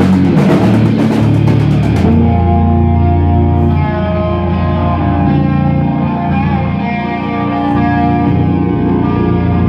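Live rock band: drums and cymbals with electric guitars and bass, loud. About two seconds in the drums stop and the electric guitars and bass carry on with sustained, ringing notes.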